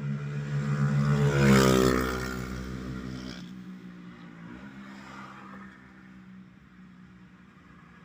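A motor vehicle passing close by on a highway. Its engine note drops in pitch as it goes past, loudest about a second and a half in, then fades into the distance.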